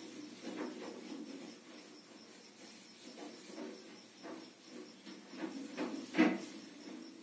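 Handling noise: irregular soft rubbing and light taps, with one louder tap about six seconds in.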